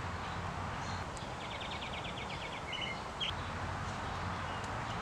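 A bird sings a rapid high trill of about a dozen quick notes, followed by two short chirps, over steady outdoor background noise.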